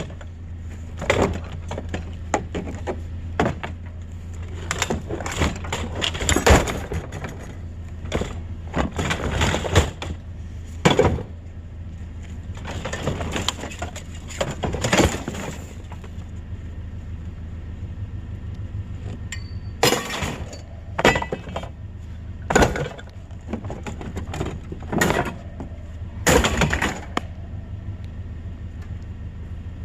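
Repeated irregular knocks, cracks and clattering of hard objects being handled or broken, some in quick clusters, over a steady low hum.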